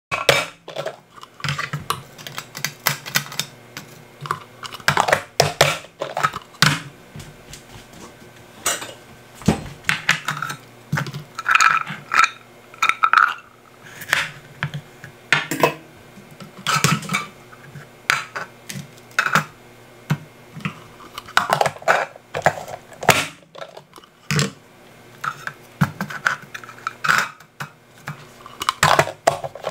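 Irregular clicks, knocks and clatter of vegetable prep: a plastic dicer's lid pressed down to push a carrot through its grid of blades, and a knife cutting a peeled potato on a plastic cutting board.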